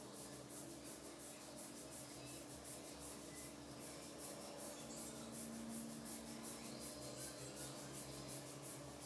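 Fingertips rubbing and scratching through long, thick hair on the scalp during a self head massage, in a quick, even rhythm of about four to five strokes a second.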